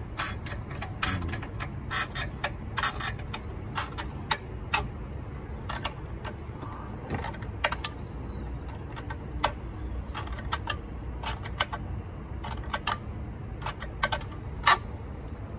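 Small steel wrench turning and tightening the nut on a car battery's hold-down clamp, then working at the positive terminal: a string of sharp, irregular metallic clicks and clinks, several a second at times.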